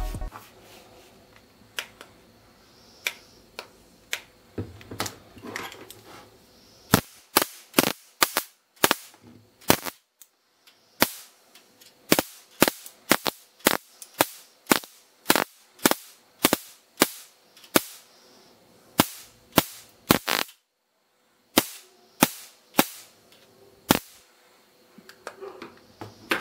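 Electric mosquito swatter's charged mesh arcing to a screwdriver tip: sharp spark snaps, a few scattered ones at first, then about two a second with short breaks. This shows the grid is live on its new lithium-ion battery.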